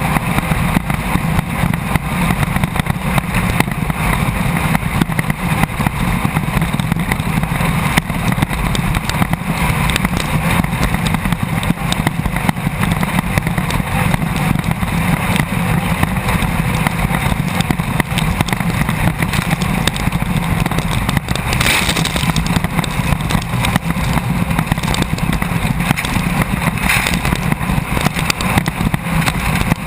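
Class 1600 off-road race buggy heard from inside the car at speed: the engine runs hard and steady under a wash of wind, tyre and chassis rattle noise. There are brief louder rough bursts about two-thirds of the way in and again near the end.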